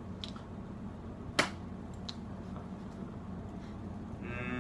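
A single sharp click about a second and a half in, with a couple of fainter ticks around it, over quiet room tone. Near the end a person hums briefly.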